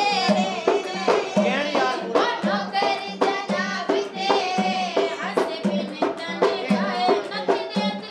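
Punjabi folk music: a singing voice over a steady, fast percussion beat of sharp strikes.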